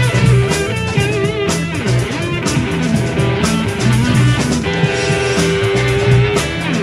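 Rock band playing live in an instrumental passage: electric guitars over bass and drum kit. A guitar line wavers and bends, with one long held note in the second half.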